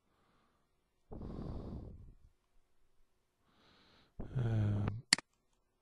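A man breathes out heavily close to the microphone, then makes a short low voiced hum, followed by a single sharp computer mouse click near the end.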